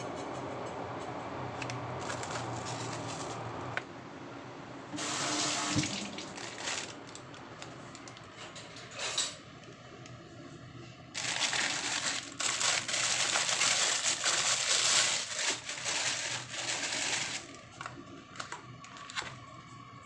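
Water running from a kitchen tap in spells, the loudest and longest from about eleven to seventeen seconds in, with a few light knocks between.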